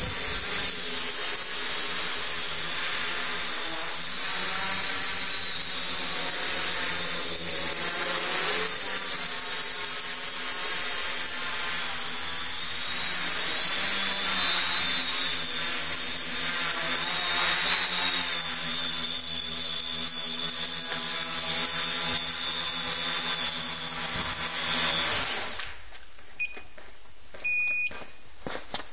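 Multirotor drone's electric motors and propellers running, a steady drone with a constant high whine and wavering tones, cutting off abruptly about 25 seconds in as the motors stop. Two short electronic beeps follow near the end.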